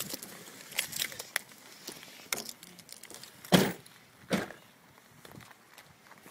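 Someone getting out of a car: scattered clicks and knocks, then a car door shutting with a loud thump about three and a half seconds in, followed by a smaller thud.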